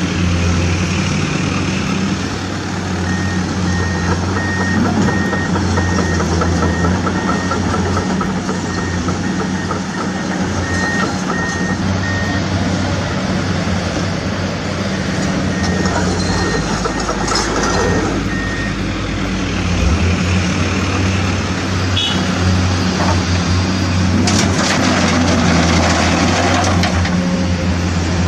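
Dump truck engine running steadily while its reversing alarm beeps in an even on-off rhythm, twice for several seconds, with a broad rush of noise near the end.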